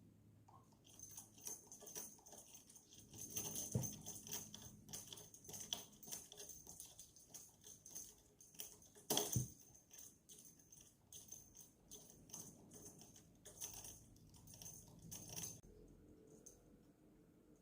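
Small bell on a cat teaser toy jingling in irregular bursts as a cat bats at it, with a louder knock about nine seconds in.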